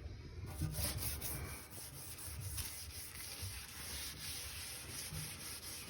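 Scrubbing a surface by hand: a steady, rough rubbing that goes on in uneven strokes.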